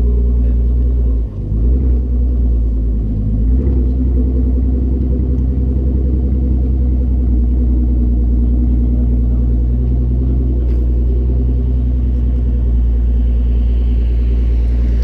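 Exhaust of a RENNtech-tuned Mercedes CL 600's twin-turbo V12 idling with a deep, steady note, wavering briefly about a second in.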